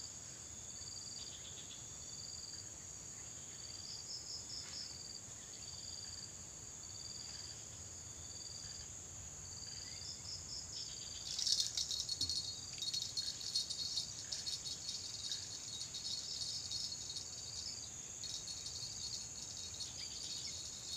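Insects calling in a steady high drone, with a short chirp repeating about once a second. About halfway through, a louder crackling rattle comes in and keeps going.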